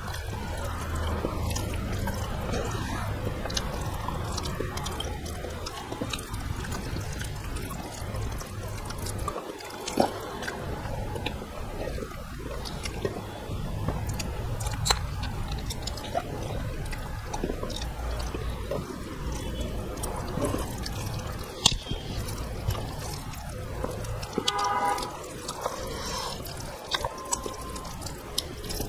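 Eating by hand: rice mixed with dal and curries on a plate by fingers and chewed, with scattered sharp clicks over a low steady hum.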